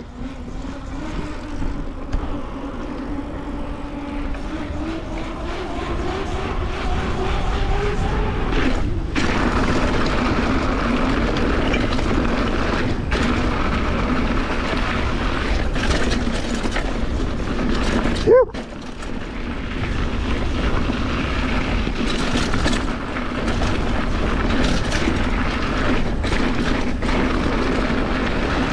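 Mountain bike riding fast down a dirt trail: a steady rush of wind and rolling noise, with a whirring hum from the bike that climbs in pitch over the first eight seconds as speed builds, then holds. A single sharp, loud knock about eighteen seconds in.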